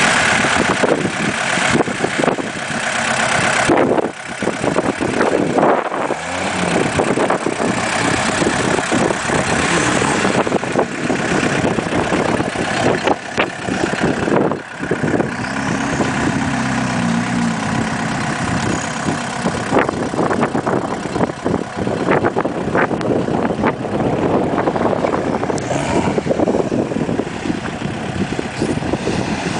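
Acme diesel engine of a diesel-converted Suzuki Vitara running, with its turbocharger whistling.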